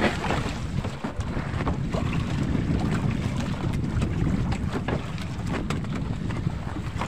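Diesel-engined wooden outrigger boat (bangka) running at sea: a steady low engine rumble with wind buffeting the microphone and short splashes of water against the hull.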